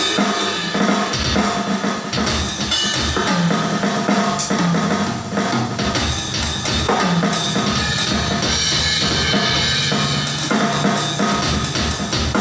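Drum kit played in a steady groove during a sound check, with the bass drum keeping a regular beat under snare hits and cymbals.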